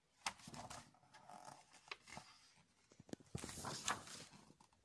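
Faint paper rustling and handling as a page of a picture book is turned: a few soft swishes and small taps, the loudest a little after three seconds in.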